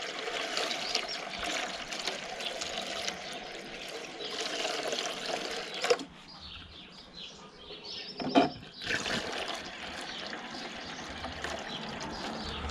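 Water pouring from a plastic jug through a makeshift glass funnel into the radiator filler of a UTB U445 tractor, filling the cooling system. The pour stops about six seconds in, a short knock comes in the pause, and the pouring starts again a few seconds later.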